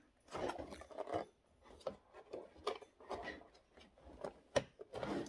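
Cardboard box being handled: hands rubbing and sliding over the carton and working at its flap, with irregular scrapes and small taps.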